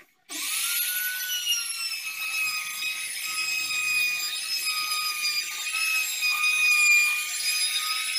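Handheld trim router (laminate trimmer) switched on and cutting along the edge of a laminate-faced plywood panel: a high, steady whine with a rasping cut, starting a moment in and settling slightly lower in pitch once under load.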